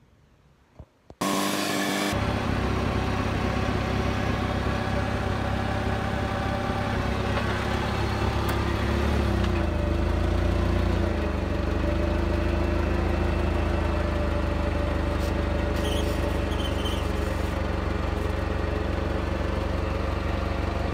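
Near silence for about a second, then the engine of an old Clark forklift running steadily; its speed changes about ten seconds in.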